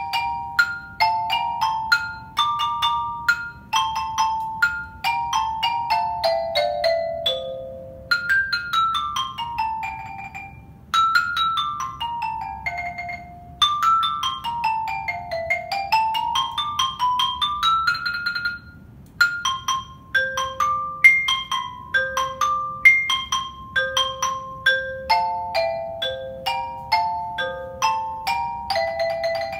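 Solo xylophone playing a quick waltz melody with hard mallets, each note struck and fading fast. Fast scale runs sweep down the keyboard several times, one turning and running back up, with short breaks before the melody picks up again.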